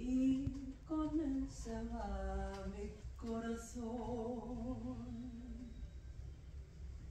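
Solo female voice singing long held notes, stepping down in pitch. The last note is sustained with a vibrato and stops about six seconds in.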